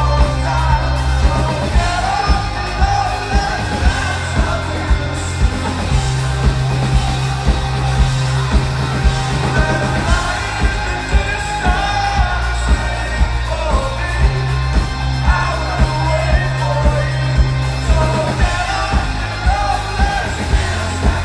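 Live rock band playing a song: sung vocals over bass guitar, keyboards and a steady drum beat at about two beats a second, recorded from within the audience.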